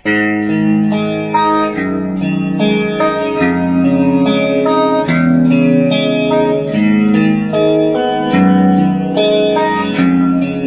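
Electric guitar played through a Strymon Lex rotary speaker pedal: chords change about once a second, and the held notes carry the pulsing, swirling wobble of a simulated rotating Leslie-style speaker.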